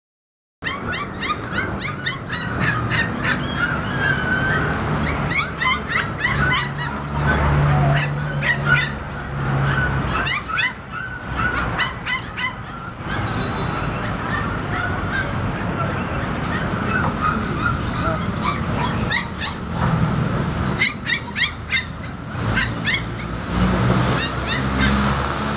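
Caged puppies yelping and whining, many short high calls overlapping in quick succession, with a lull past the middle before they pick up again. A low hum comes and goes underneath.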